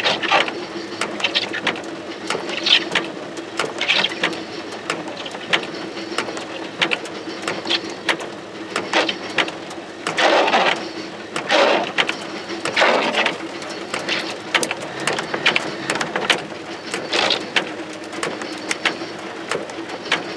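Freight train of tank cars rolling past, heard from inside a car. There are many irregular sharp clicks over a steady low hum, with a few louder noisy bursts about halfway through.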